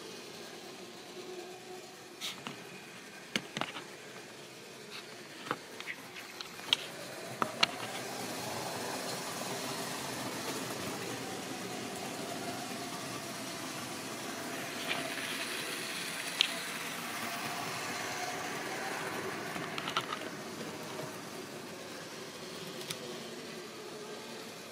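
Model railway train running on the track. First there is a scatter of sharp clicks. From about eight seconds in, a motor whirr and wheel rumble swell, wavering in pitch, and fade near the end.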